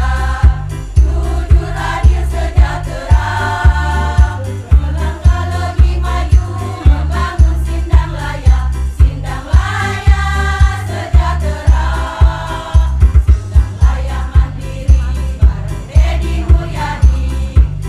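Women's choir singing in parts over a steady, heavy low beat.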